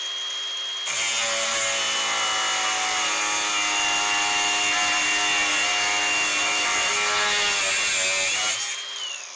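Milwaukee Fuel cordless angle grinder with a thin cut-off disc, cutting through half-inch steel round bar. The motor whines freely, then about a second in the disc bites and a loud, steady grinding runs for about seven seconds. Near the end the disc breaks through, the motor speeds up briefly and then spins down.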